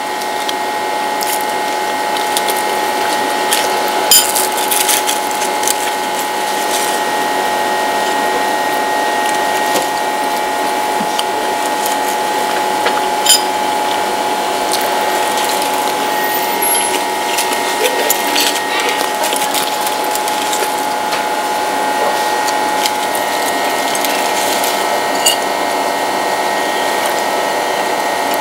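Steady mechanical whirring made of several held tones, with scattered sharp clicks; the loudest clicks come about four seconds in and again around thirteen seconds.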